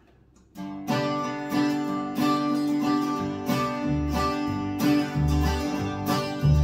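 Instrumental opening of an acoustic folk song. Acoustic guitar and a mandolin-type instrument start strumming chords about half a second in, and an upright double bass joins with plucked low notes from about four seconds in.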